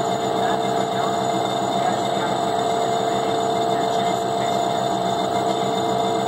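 Visco Jet agitator running steadily, its shaft stirring viscous orange juice concentrate into a vortex: an even machine whir with a few constant hum tones and no change in speed.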